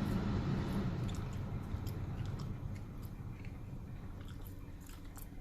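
Dodge Caravan's HVAC blower fan running and pushing air through the vents over the engine idling, a steady rushing noise that slowly fades, with faint small ticks. The fan works again because a blown blower motor resistor has just been replaced.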